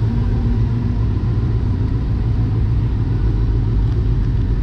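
Steady low rumble of a motorcycle engine, with a faint steady tone in the first second.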